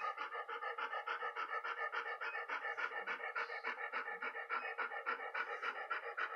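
Dog panting in a fast, even rhythm through a plastic basket muzzle, several breaths a second without a break.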